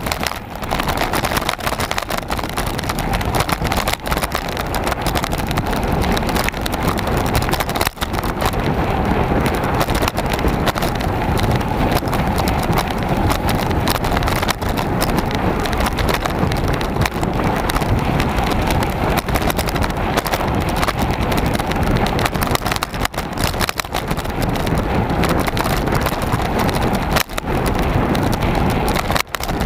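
Mountain bike rattling and clattering over a rough dirt and grass track, heard through an onboard camera: a dense, continuous rattle full of small knocks from the bumps, with rushing wind.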